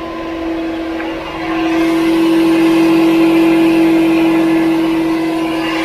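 Rear drivetrain of a 2007 Toyota 4Runner running in gear with the rear wheels spinning free at about 40 mph: a loud, steady hum with one strong tone, growing louder about a second and a half in. The hum is the bearing noise the owner is diagnosing; through the stethoscope the wheel bearing sounds quiet, and he traces the noise toward the differential bearings.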